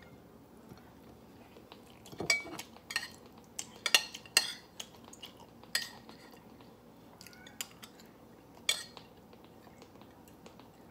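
Metal spoon clinking and scraping against a bowl of rice: about ten short, irregular clinks, the sharpest around two and four seconds in and again near nine seconds.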